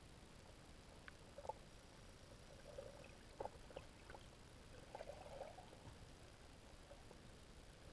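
Near silence underwater, with a few faint, short clicks and pops scattered through it, a small cluster of them about five seconds in.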